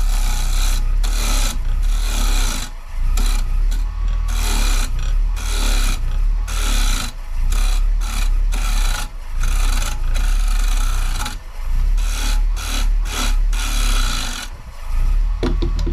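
Carbide turning tool cutting into a spinning maple bowl blank, scraping in repeated passes of a second or so with brief dips between, over the steady hum of the lathe's motor.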